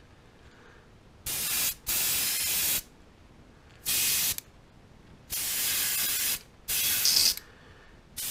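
Airbrush spraying opaque white paint in about five short bursts of hiss with pauses between, laying a white base coat on a crankbait.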